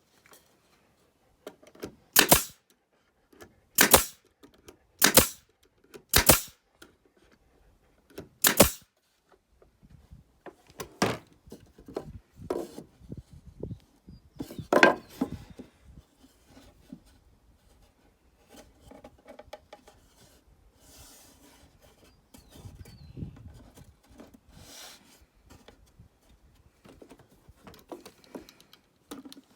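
A series of sharp knocks: five loud ones over the first nine seconds, then scattered quieter knocks and rustling.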